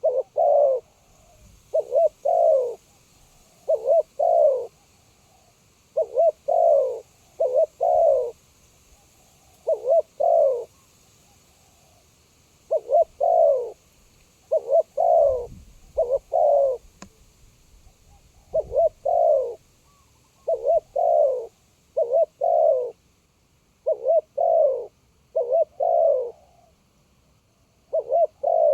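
Spotted dove cooing close by, its phrase of two or three low coos, the last one drawn out, repeated about every two seconds, with a couple of slightly longer pauses.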